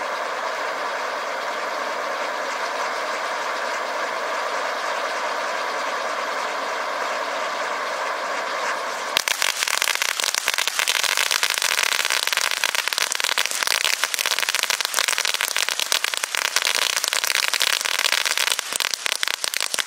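Consumer firework fountain and spinners hissing steadily as they spin out sparks. About nine seconds in, the sound jumps suddenly into a loud, dense crackling that runs on until near the end.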